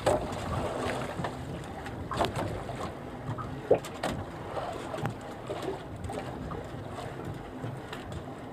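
Wind and sea water around a small fishing boat, with scattered knocks and handling clatters against the hull as a fish is hauled in over the side on a handline; one sharper knock comes a little before the middle.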